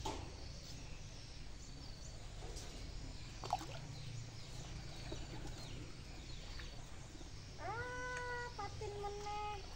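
Two drawn-out animal calls near the end, each under a second, the second a little lower in pitch, over faint high insect chirping and a steady low hum. A short sharp chirp-like sound comes about three and a half seconds in.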